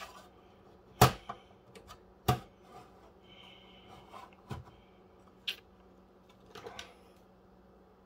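Sheet-metal drive cage being set into a steel server chassis: two sharp metal knocks about a second in and two seconds in, then a few lighter clicks and taps as it is fitted into place.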